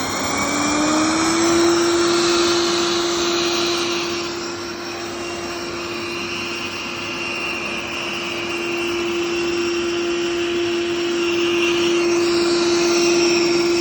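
Xiaomi robot vacuum's motor spinning up over the first second or so, then running with a loud, steady whine. The title calls it loud motor noise.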